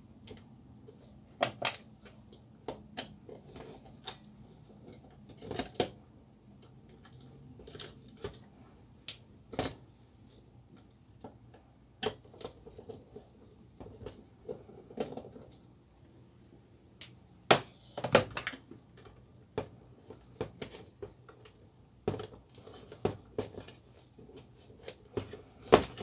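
Irregular clicks, taps and knocks of plastic and metal parts as a laser printer's fuser assembly is handled and taken apart by hand, with a loud pair of knocks about two-thirds of the way through.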